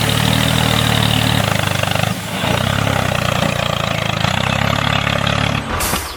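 Engine running steadily, dipping briefly about two seconds in and cutting off suddenly near the end.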